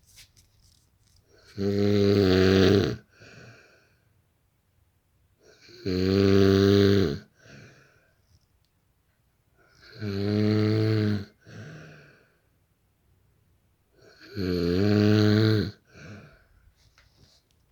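A man snoring loudly in his sleep: four long snores about four seconds apart, each followed by a shorter, softer breath.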